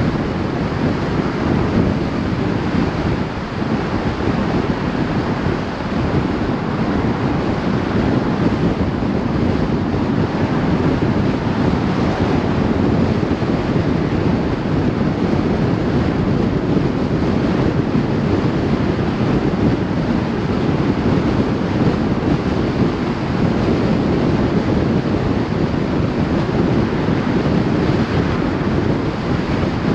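Steady, unbroken rush of wind on the microphone mixed with tyre and road noise from a vehicle moving at road speed.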